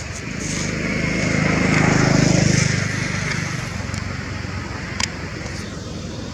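A motor vehicle engine passing close by, growing louder over a couple of seconds and then fading, over a steady engine hum. A single sharp click about five seconds in.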